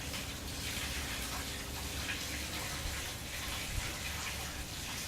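Steady, even rushing noise with a low hum underneath, like running water or background hiss.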